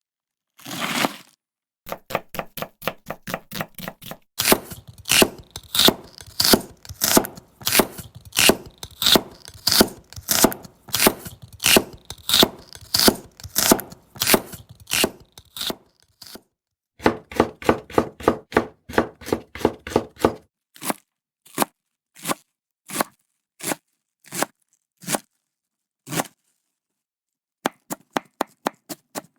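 Japanese kitchen knife (houchou) chopping ingredients on a cutting board: several runs of quick cuts at about three to four a second, between them slower single cuts about a second apart, with short pauses.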